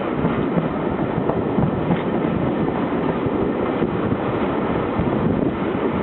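Historic Italian train heard from on board: a steady rolling rumble with faint scattered clicks.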